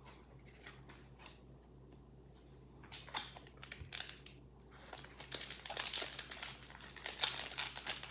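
Foil Pokémon card booster pack wrapper being handled and torn open: a few scattered crackles, then dense crinkling from about five seconds in.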